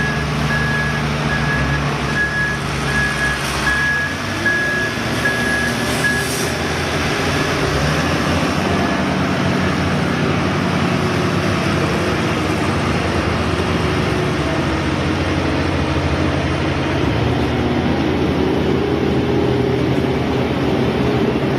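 Heavy road-construction machine's engine running steadily, with a reversing alarm beeping at a steady pace until it stops about six seconds in.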